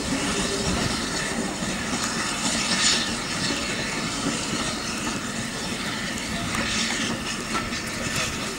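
GWR Manor-class 4-6-0 steam locomotive 7820 hauling a train of coaches, with a steady hiss of steam and the sound of the running train. There is a brief louder burst of hiss about three seconds in.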